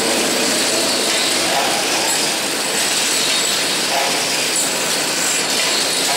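Drill-bit forming machine working the spiral flutes into a red-hot steel twist-drill blank, giving off a steady, dense mechanical noise with a thin squeal high up.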